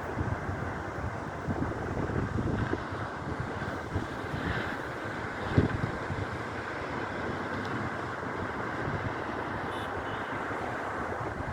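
Strong wind buffeting the microphone in a steady, rumbling rush, with one sharp bump about halfway through.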